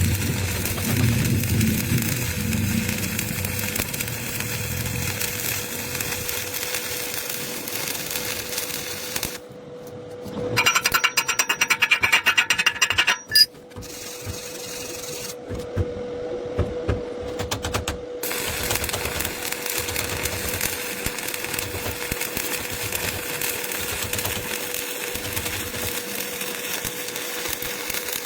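Electric arc welding crackling steadily, with short breaks about ten and fourteen seconds in and a louder stretch of rapid clicks between them.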